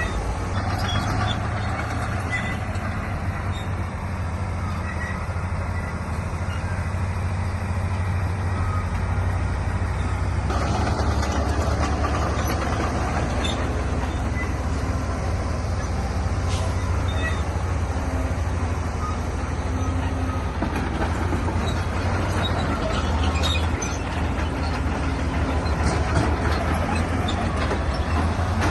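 Heavy diesel earthmoving machinery running steadily, with scattered light metallic clanks. The engine noise grows fuller and louder about ten seconds in, as if working harder under load.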